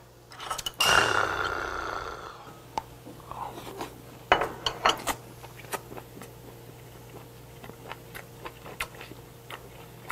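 Chopsticks clicking against plates and a tabletop grill pan, with chewing of hot grilled food, over a low steady hum. About a second in there is a loud breathy burst from the eater that fades away.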